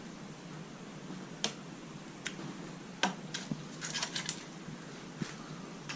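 Scattered light clicks and clinks of hand tools and small parts being handled during motorcycle chain work, with a short cluster of them about four seconds in.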